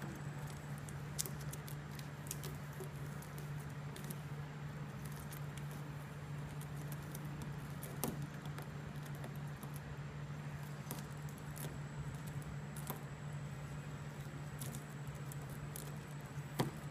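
Light scratching and scattered small clicks as fingertips and a craft-knife tip pick and peel thin stencil material off a Plasti Dip-coated car hood, over a steady low hum.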